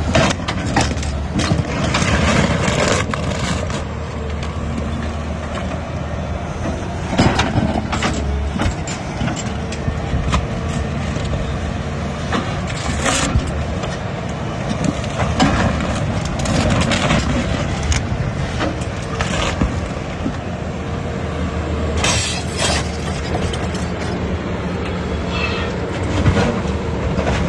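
Large excavator's diesel engine running steadily under load, with scattered cracks and crashes of rock breaking as the ripper tooth digs.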